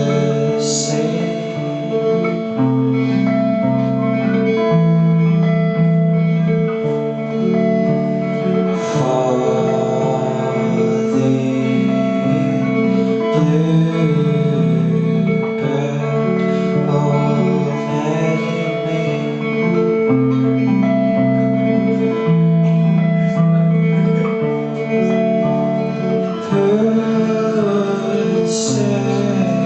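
A band playing a song: guitar over steady bass notes, with a singing voice.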